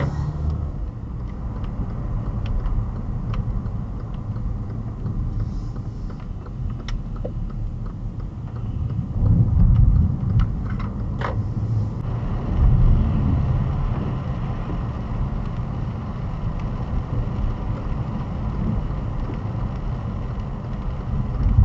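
Car driving on a wet road, heard from inside the cabin: a steady low rumble of tyres and engine, with a few faint scattered clicks. The rumble swells louder about nine and twelve seconds in.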